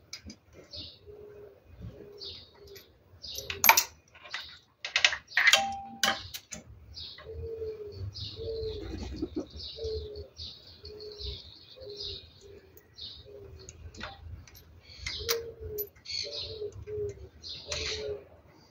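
A dove cooing in a steady run of short, low notes, with small birds chirping higher up. A few sharp knocks or clinks stand out about four seconds in and again around five to six seconds in.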